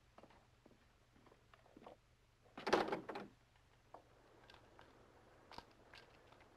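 A door shutting with one dull thump about two and a half seconds in; otherwise only faint scattered clicks.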